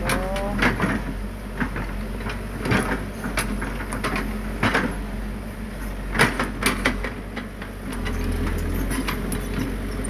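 Diesel engines of a Cat 312C excavator and a small crawler bulldozer running steadily while they work dirt, with irregular sharp clanks and knocks of steel and rock, the loudest about six seconds in.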